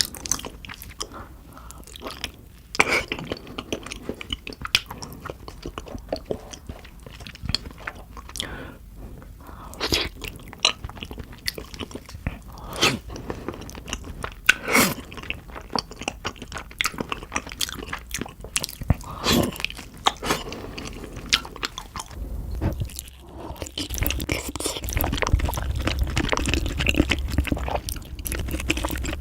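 Close-miked chewing and biting of spicy beef feet: irregular wet smacks and crunchy clicks of gelatinous tendon and cartilage. About three quarters of the way through the chewing turns denser and louder.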